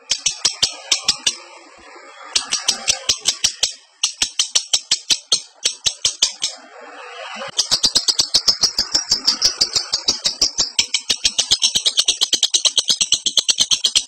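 Lovebird in breeding condition giving its rapid 'ngekek' chatter: a long run of sharp, high repeated notes, many a second, broken by short pauses about two, four and seven seconds in.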